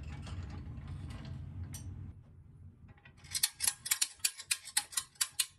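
Metal toy tow truck rolling across a wooden bench with a low rumble. It is followed by its winch clicking rapidly, about six clicks a second for two seconds, as it winds the hook chain up to lift the front of an old toy truck.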